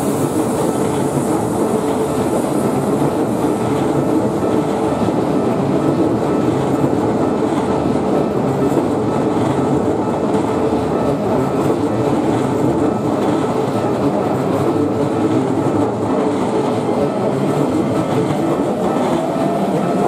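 A commuter electric train passing close by over a level crossing: a steady, loud run of wheel and rail noise with clickety-clack over the rail joints. The crossing's warning bell rings on under it, and near the end a rising motor whine comes in as a second train approaches.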